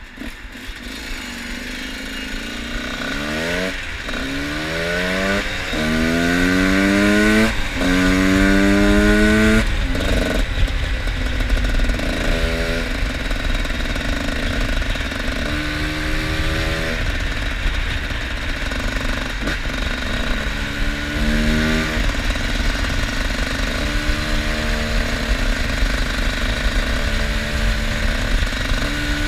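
Two-stroke enduro motorcycle engine accelerating hard through the gears, about four rising runs of revs from a few seconds in, each cut by an upshift. After that it gives shorter, repeated bursts of throttle.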